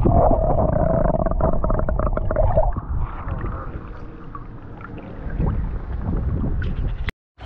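Creek water heard with the microphone underwater during a trout release: a muffled rumble and bubbling with clicks and a steady hum for about the first three seconds. It then gives way to quieter splashing and running water at the surface, and cuts off suddenly near the end.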